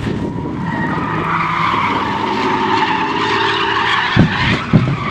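A drift car's engine running hard under throttle while its tyres squeal in a long sideways slide. Two loud thumps come near the end, about half a second apart.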